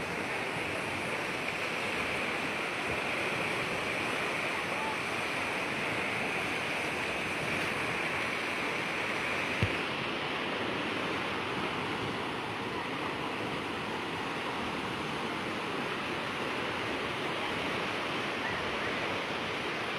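Swollen, fast-flowing flood river running in a steady rush of water noise, its muddy current churning into white standing waves. A single brief thump about halfway through.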